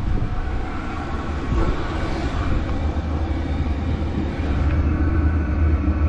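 Diesel air heater running at operating temperature with its glow plug off: a steady, gentle blowing from the fan and burner over a low hum, slightly louder near the end.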